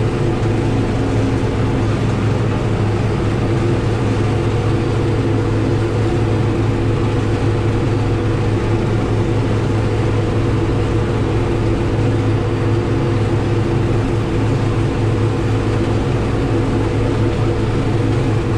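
Farm tractor's diesel engine running steadily at constant speed, a loud even hum with no change in pitch.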